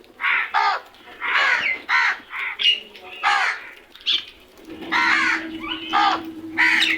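Crows cawing over and over: about a dozen short, harsh caws in quick succession. A steady low hum starts about two-thirds of the way through.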